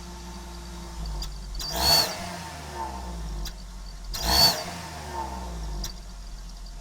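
Car engine idling and blipped twice, with a turbo whistle fitted in the exhaust pipe giving a high whistle at the top of each rev.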